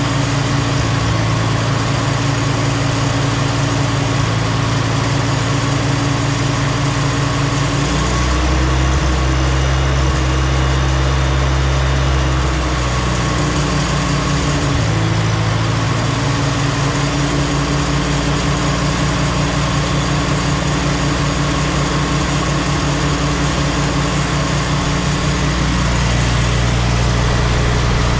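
International Cub Lo-Boy tractor's four-cylinder engine running steadily. Its pitch shifts about eight seconds in, again around thirteen to fifteen seconds, and once more near the end.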